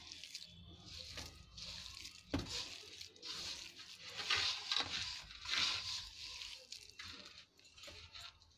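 A hand kneading crumbly mawa (khoya) with powdered sugar in a bowl: irregular gritty rustling and scraping, with a single knock about two and a half seconds in.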